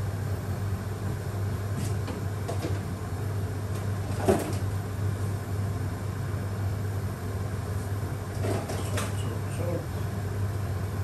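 A steady low hum in the kitchen, with a few faint knocks, the clearest about four seconds in.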